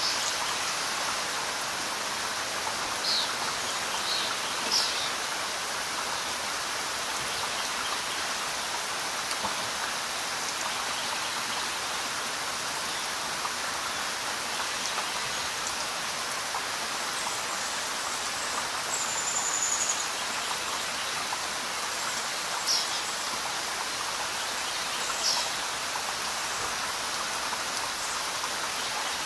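Steady rain falling on leaves, an even hiss of many drops. A few short high-pitched sounds stand out now and then.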